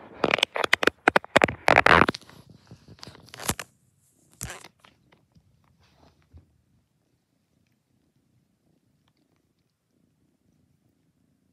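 Cat purring while brushing against the phone, giving loud close-up rustling and scraping on the microphone for about three and a half seconds. A shorter burst follows, then a few faint rustles before it goes quiet.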